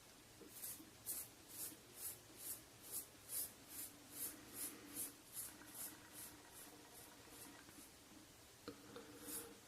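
Rockwell 6c safety razor with a SuperMax Blue Diamond blade scraping through a week's stubble on a head slicked with hair conditioner instead of lather. Short, quiet scraping strokes come about two a second, fading out past the middle and starting again near the end.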